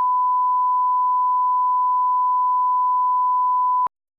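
Steady 1 kHz line-up test tone of a bars-and-tone leader, the audio reference for setting levels, one unbroken beep that cuts off abruptly about four seconds in.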